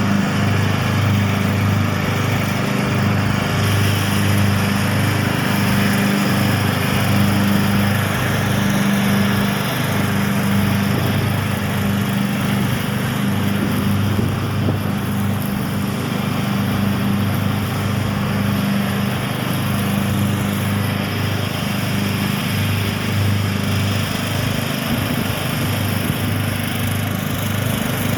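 Cub Cadet LT1042 riding lawn mower's Kohler Courage 19 single-cylinder engine running steadily.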